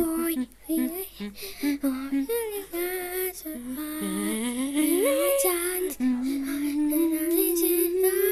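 A child singing a tune unaccompanied, ending on one long held note from about six seconds in.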